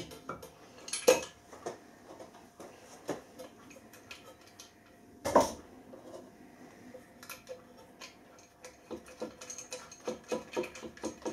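Metal bolts and washers clinking and tapping against a milling machine's metal motor mounting plate as the motor is bolted on, with two sharper knocks about a second in and about halfway through.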